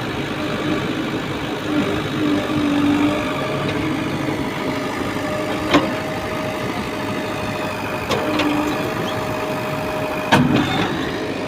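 Diesel engine of a JCB 3DX backhoe loader running steadily at idle, with two sharp knocks, one about halfway through and a louder one near the end.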